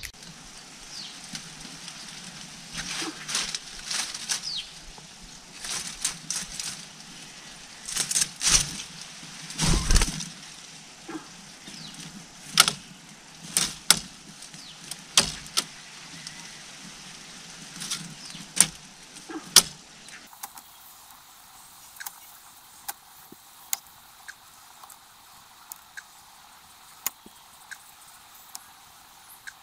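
Irregular rustles and sharp clicks from the grass nest and surrounding leaves as a red-whiskered bulbul moves about at its nest, with a couple of dull thumps around eight and ten seconds in. After about twenty seconds the sound drops to sparse, faint ticks over a low hiss.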